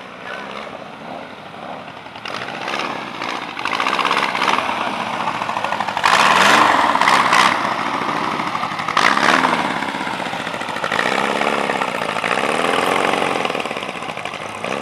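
Several trike engines running as the machines pass one after another, each one's pitch rising and falling as it goes by. The loudest pass comes about six to seven seconds in.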